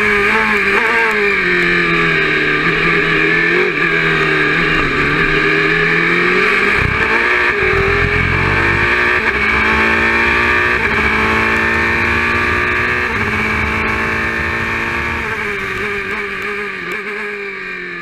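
Oreca 03-R LMP2 prototype's Nissan V8 heard from inside the cockpit at racing speed. The engine note drops through the first seconds as the car slows for a corner, then climbs in a series of rising steps through the upshifts under full throttle along the straight. Near the end it falls again as the car brakes, and the sound fades out.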